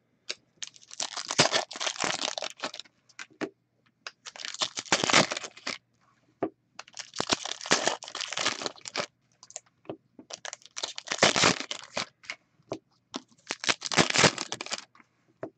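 Plastic wrapping on sealed hockey card boxes crinkling and tearing as it is pulled open, in about five bursts of one to two seconds each.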